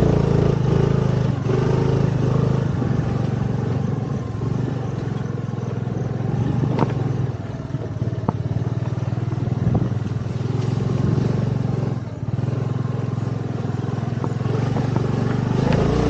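A two-wheeler's engine running steadily at low speed over a rough dirt track, easing off briefly a couple of times, with a few sharp knocks from the bike jolting over the ruts.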